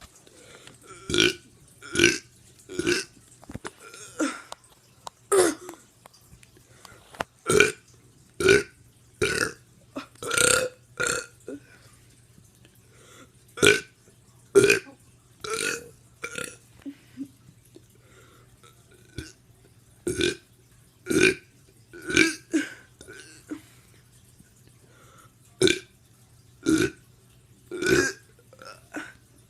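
A teenager burping over and over: short separate burps about one a second, with a couple of brief pauses between runs.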